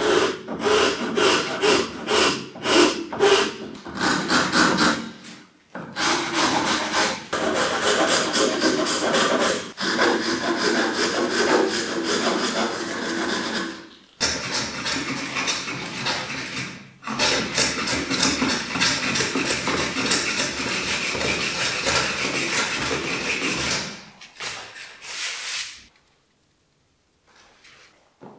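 Hand rasp scraping back and forth across the edge of a piece of olive wood, a fast series of rough strokes in runs broken by brief pauses. The strokes thin out and stop about two seconds before the end.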